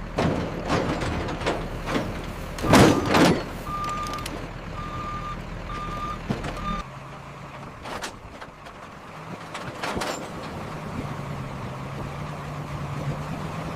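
A truck idling, with several clanks and knocks, the loudest about three seconds in, then a reversing alarm beeping four times. The engine hum stops about seven seconds in and a lower hum comes up later.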